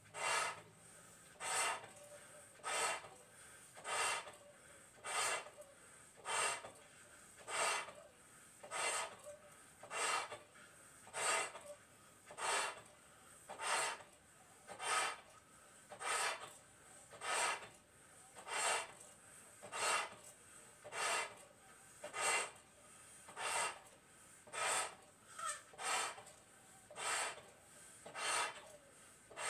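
A person breathing hard and rhythmically while blowing up two Bo Bo balloons by mouth: a short, rasping rush of breath about once every 1.2 seconds, with no burst.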